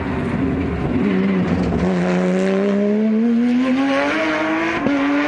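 Porsche 911 GT's flat-six engine: the revs drop about a second in, then climb steadily for about three seconds as the car accelerates, with a short break near the end.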